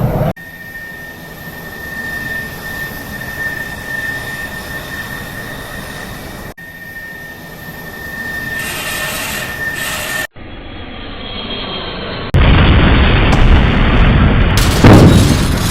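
Jet airliner sound effects: jet engines running with a steady high whine, spliced in abrupt sections. About twelve seconds in comes a sudden much louder blast of rushing noise, the sound of the crash.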